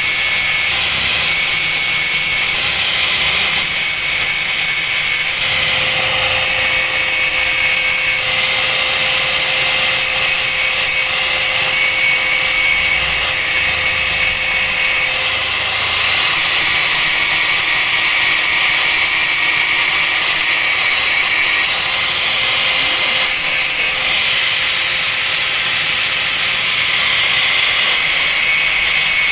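Small electric power tool running steadily at high speed, grinding burnt material off a circuit board; its tone shifts every few seconds as the load changes.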